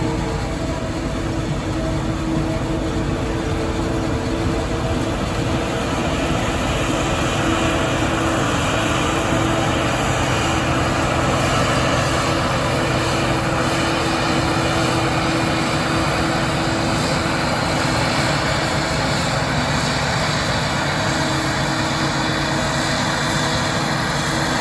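Claas Jaguar forage harvester chopping maize, its engine and chopper running steadily under load, together with the tractor engine of the trailer driving alongside. A few steady low engine tones fade out about five seconds in.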